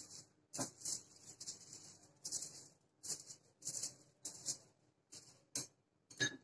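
Silicone pastry brush spreading ghee over aluminium foil: repeated soft, crinkly brush strokes, a little over one a second. Two light clicks near the end as the brush is set down in a glass bowl.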